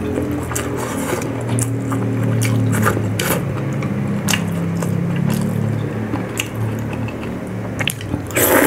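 Close-miked wet chewing and mouth clicks as a mouthful of rice is eaten, over a low hum, then a loud crunching bite into a piece of boiled corn on the cob near the end.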